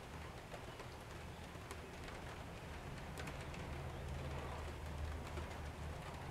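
Faint, scattered clicks and taps of a small hand wrench working the windshield wiper mounting, over a low steady hum.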